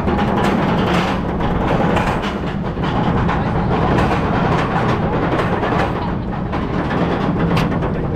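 Roller coaster train climbing a chain lift hill: the lift chain rattles steadily under repeated sharp clicks of the anti-rollback dogs.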